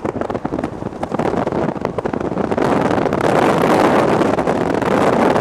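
Moving car's road and wind noise, heard from inside the vehicle, growing louder about two and a half seconds in.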